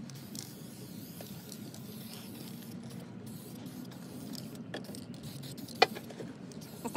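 Light handling noises from a roofer working by hand on clay roof tiles around a pipe flashing, over a steady outdoor background hum. There is one sharp click nearly six seconds in and a smaller knock near the end.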